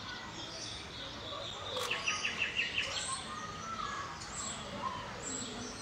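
Small birds chirping over steady outdoor background noise. About two seconds in, a quick run of about seven sharp chirps in under a second is the loudest sound.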